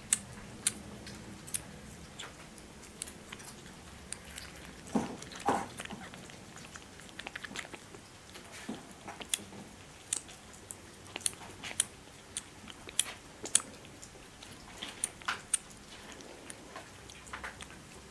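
Kittens eating: an irregular run of small wet clicks and smacks from a kitten suckling at a feeding bottle and others chewing food. A couple of duller knocks come about five seconds in.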